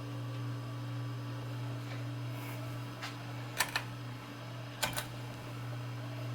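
Lasko Turn of the Century ceiling fan motor running with a steady low hum. About halfway through come two pairs of sharp clicks, a little over a second apart.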